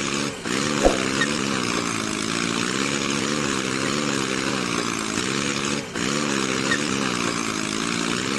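A small engine or motor running steadily, its pitch wavering up and down about once every 0.7 seconds, with a hiss over it. It is cut off briefly about half a second in and again near six seconds, with a single click about a second in.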